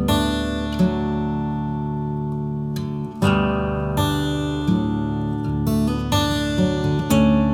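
Background music: gentle acoustic guitar, plucked and strummed chords over held notes.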